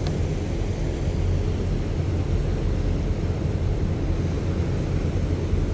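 Cruise ship's thrusters running as it moves off the pier, a steady low rumble with the water churning beside the hull.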